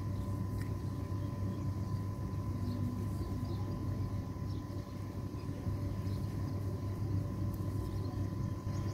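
Steady low rumble of outdoor background noise, with a faint steady high tone and a few faint short chirps.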